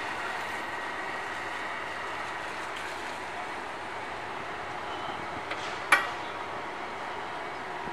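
Steady outdoor background noise with a faint high hum, broken by a single sharp knock about six seconds in.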